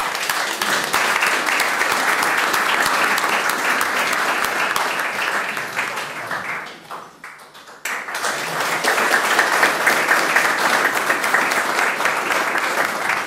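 Audience applause, a dense patter of many people clapping. It dies away about seven seconds in, and a fresh round starts abruptly about a second later.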